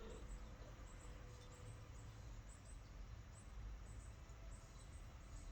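Near silence: a low room hum with faint, high chirps repeating several times a second.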